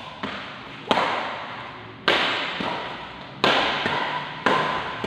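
Badminton rackets striking a shuttlecock during a rally: about five sharp hits, roughly one a second, each echoing in the hall.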